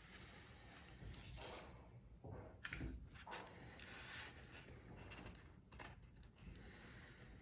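Near silence with faint rubbing and scraping noises: a freshly moulded carbon-fibre mudguard being handled and turned over, the clearest scrape about three seconds in.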